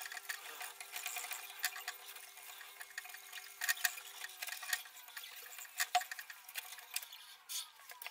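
Hands rubbing and sliding over the face of a metal surface plate, a dry scratchy scraping with several sharp clicks and knocks of metal on metal.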